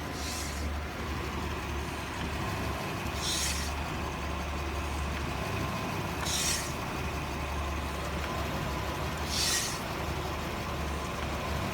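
Engine idling, with a short hiss of air about every three seconds, four times, as the brake pedal is pressed: air rushing into a failing brake power booster, a large vacuum leak.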